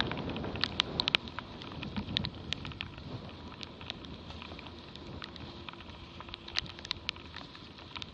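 Spray from a Dart 16 catamaran's hull pattering on the camera, many sharp droplet ticks over a steady rush of water and wind. The ticks come thickest in the first second or so, then thin out.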